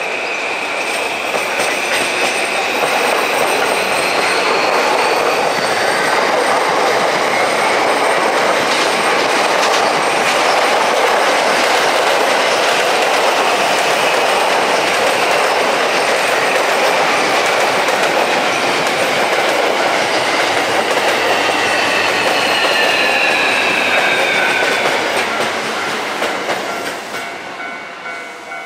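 Electric multiple-unit train running past close by: a steady loud rush of wheels on the rails that builds over the first couple of seconds and fades away near the end. High squealing tones slide in pitch shortly before it fades.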